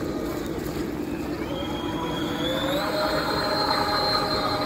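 Whine of an RC model pontoon boat's brushless-motor scale outboard as it speeds up. The pitch climbs from about a third of the way in, steps higher just past halfway, then holds high.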